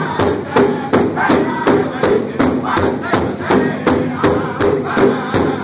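Powwow drum group beating a large hide drum in unison with sticks, a steady even beat of close to three strokes a second, while the singers sing a Northern-style contest song together.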